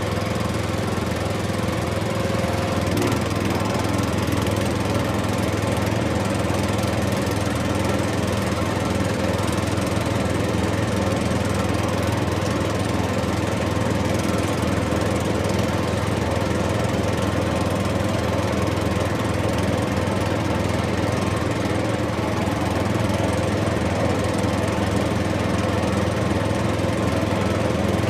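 Diesel engine of a rice combine harvester running steadily under load, a constant engine drone with no breaks.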